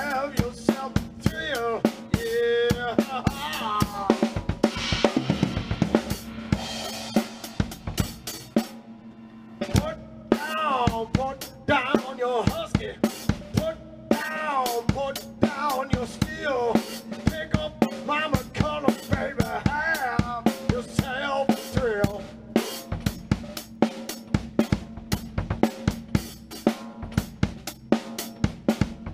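Rock drum kit played with a driving beat of bass drum, snare and cymbals, and a man singing over it. The singing stops about three quarters of the way through while the drumming carries on, with a brief drop around a third of the way in.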